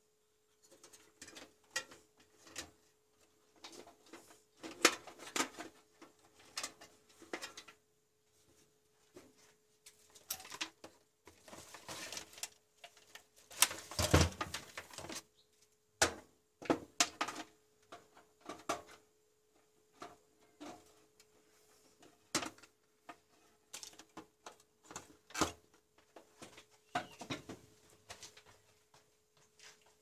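Handling noise from cables being routed and plugged into a desktop computer case: scattered clicks, taps and rustles, busiest about halfway through, over a faint steady hum.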